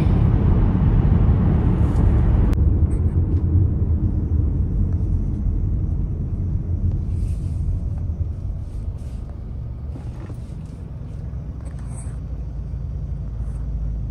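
Car driving, with a steady low rumble of road and engine noise. The higher hiss drops away abruptly about two and a half seconds in, and the rumble slowly gets quieter after that.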